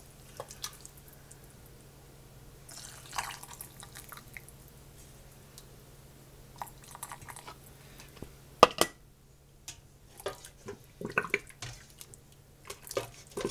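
Beef gravy poured through a plastic canning funnel into a glass jar, with soft pouring and dripping. One sharp clink about two-thirds of the way through.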